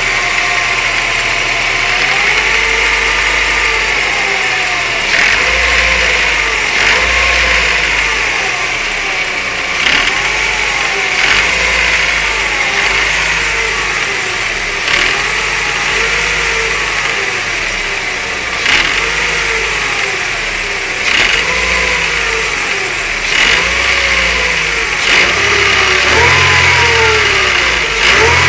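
Mercedes-Benz SLK 230 Kompressor's supercharged four-cylinder engine running with its speed rising and falling over and over, a pitch that swells and drops every second or two over a steady hiss, with a few sharp clicks. It is the strange engine sound the owner is recording.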